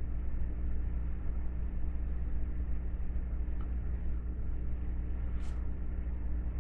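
A steady low electrical hum with evenly spaced overtones, and one short faint scrape about five and a half seconds in.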